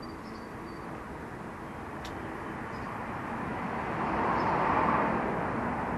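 A passing vehicle's steady rush of noise swells steadily, loudest about four to five seconds in. Faint high bird chirps come and go above it, and a single sharp click sounds about two seconds in.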